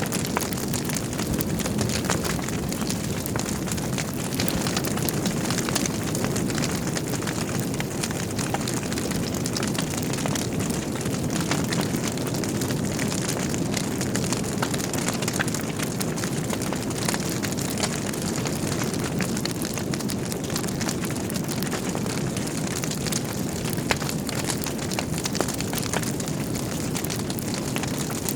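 Wood fire burning in a fireplace: a steady low rumble of the flames with many small crackles and pops from the logs.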